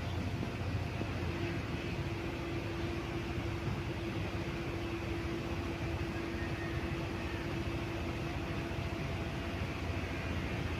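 Cosmos 56-inch (140 cm) industrial ceiling fan, model 56-CBA, running steadily: an even rush of moving air with a low motor hum and a steady mid-pitched tone.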